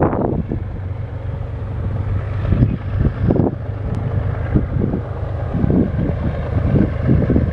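Wind buffeting the microphone in irregular gusts, over a steady low rumble.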